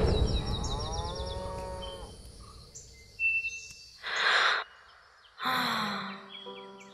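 Animated-cartoon sound effects: a heavy thud fades out, a farm animal gives a low mooing call, then the clay character draws a deep breath in and lets it out in a long sigh.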